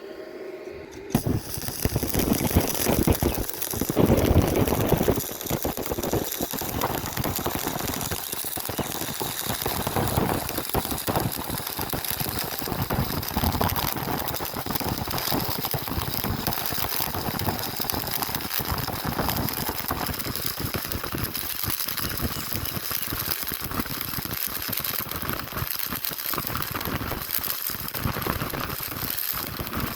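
Stick (manual arc) welding: the electrode's arc is struck about a second in and then crackles and sputters steadily as the bead is run.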